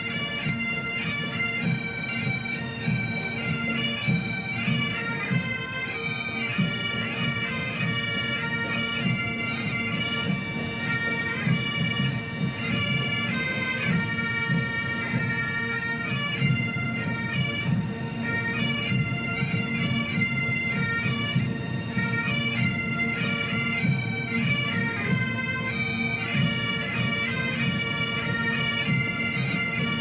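A pipe band of Great Highland bagpipes plays a tune over its steady drones, with drums beating rapidly underneath.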